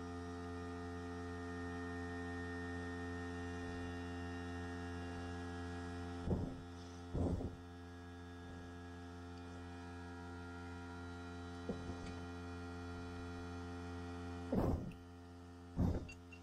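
Steady electrical mains hum with a buzzy stack of overtones, broken by a few short dull knocks, a pair about six to seven seconds in and another pair near the end.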